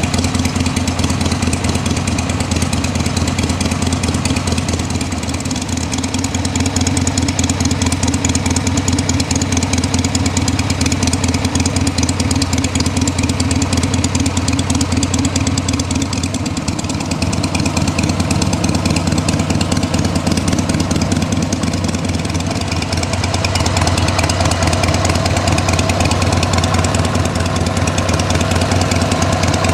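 2001 Harley-Davidson Sportster 883's air-cooled V-twin engine idling, its note shifting slightly a few times.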